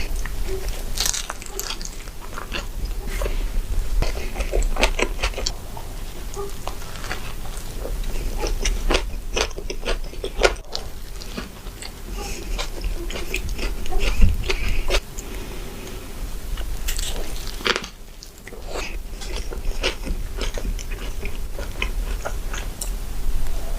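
Close-miked eating sounds: big bites into burgers and fast food with crunching, followed by wet chewing and smacking.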